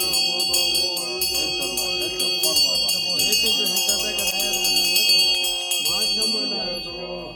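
Music: a chanted Buddhist mantra over steady ringing bells and rapid jingling, which fade out near the end.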